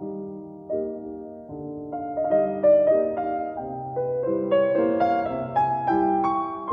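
Background piano music: a slow, gentle piece of held notes and chords.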